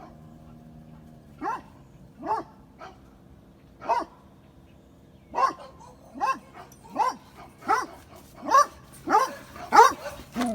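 A dog barking over and over, the barks coming closer together toward the end, over a faint steady hum that fades away in the first few seconds.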